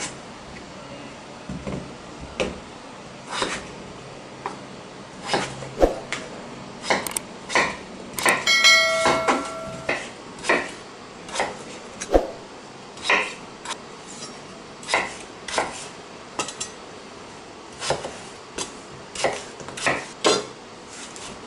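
Kitchen knife chopping through raw peeled potatoes and knocking on a wooden cutting board: a series of sharp, irregular chops about once a second. About nine seconds in there is a brief metallic ring.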